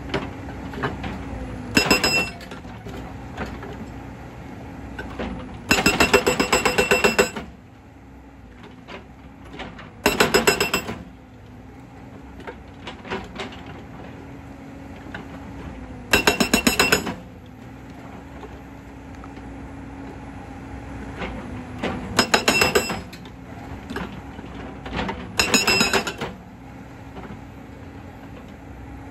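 JCB tracked excavator's hydraulic breaker hammering rock in six bursts of rapid blows, each lasting about a second or so, with the excavator's diesel engine running steadily between them.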